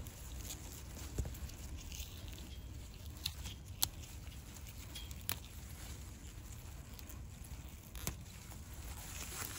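Onion chive stalks rustling and snapping now and then as a hand picks them, a few sharp clicks spread through, over a low steady rumble of wind on the microphone.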